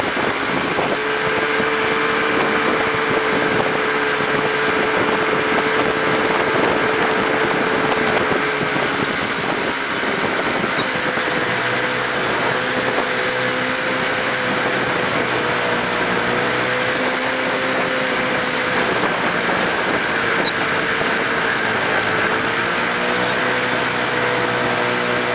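600cc snowmobile engine of a mini buggy running under way at a fairly steady speed over a constant rush of noise. Its note eases off about nine seconds in and again around twenty seconds, then picks up.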